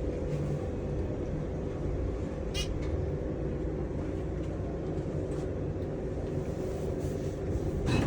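Hotel elevator car in motion, heard from inside the cab: a steady rumble and hum with a faint steady tone, and a brief tick about two and a half seconds in.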